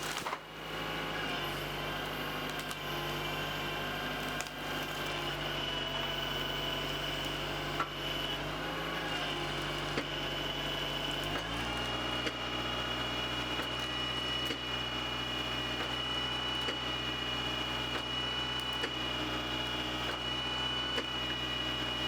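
Tractor engine running steadily and driving the hydraulics of a Naarva felling head, with a steady high whine over it. About halfway through the engine speeds up in one step and holds the higher speed.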